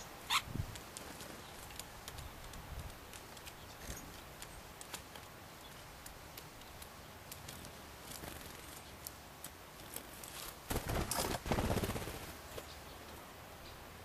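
Great spotted woodpecker and small garden birds at a wire-mesh peanut feeder: scattered light taps and clicks, then a loud, close flurry of wingbeats lasting about a second and a half, a couple of seconds before the end.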